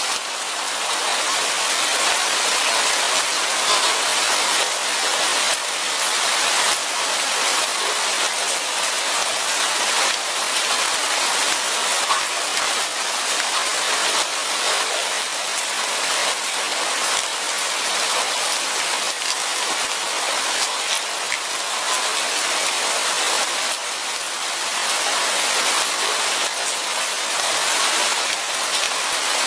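Steady light rain falling: a dense, even hiss of drops with countless small individual drop ticks.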